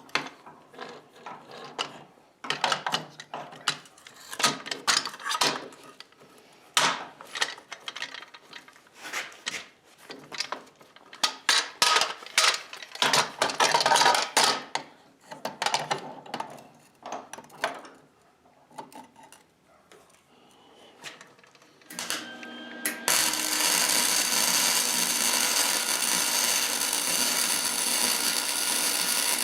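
Hand work on sheet steel: irregular knocks, clanks and scraping of metal and tools. About two-thirds of the way through, a power tool starts and runs steadily.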